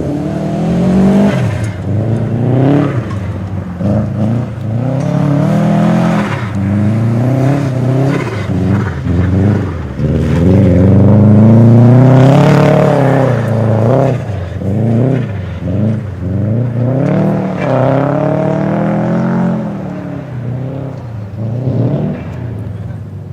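Car engine revved hard and backed off over and over, its pitch climbing and dropping with throttle and gear changes as the car is slid through mud. The longest, loudest full-throttle pull comes about ten to thirteen seconds in, and the engine settles to lower revs near the end.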